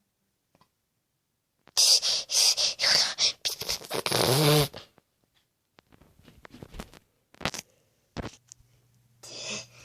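A girl's run of quick, sharp breaths, followed by a longer forceful sneeze-like burst that ends in a falling voiced cry. Fainter rustling and handling noises follow.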